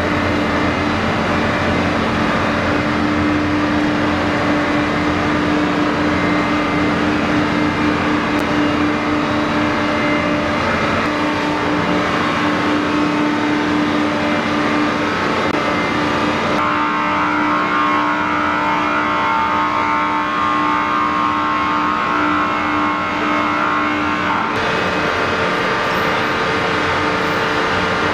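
Aircraft tow tractor's engine running steadily as it tows an F-35B, with a steady mechanical hum under it. The sound changes abruptly twice, about two-thirds of the way through and again near the end.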